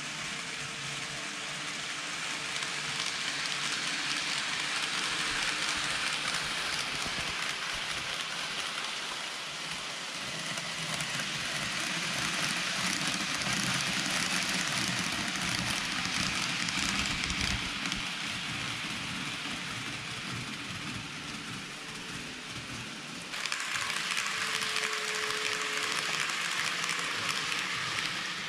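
N-gauge model trains (KiHa 181 series and 223-2000 series) running on layout track: a steady rolling hiss of wheels on rails and motors, with a faint humming tone underneath. Near the end the hiss jumps suddenly louder.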